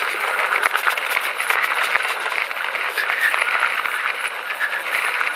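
Mountain bike tyres crunching over a rough, rocky dirt trail on a descent. The bike rattles with a steady stream of small clicks and knocks.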